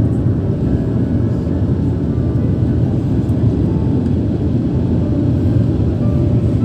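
Steady low rumble of a jet airliner's engines and rushing air, heard inside the cabin from a window seat over the wing.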